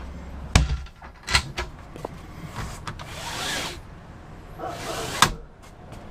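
A cabinet door in a camper's interior being handled, opened and shut: a series of latch clicks and knocks, with a brief rustling swish in the middle and a sharp click near the end.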